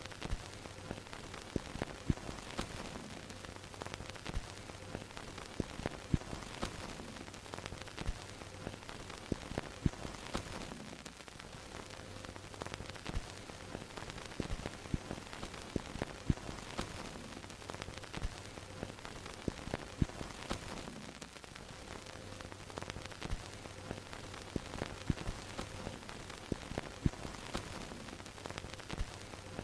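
Old-film sound effect: steady hiss of a vintage film projector's soundtrack with irregular crackles and pops from dust and scratches, over a faint low hum that comes and goes.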